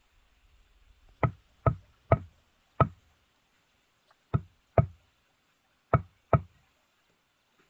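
Eight sharp knocks of a hard strike, each with a brief ringing tone, coming in uneven groups with short pauses between them.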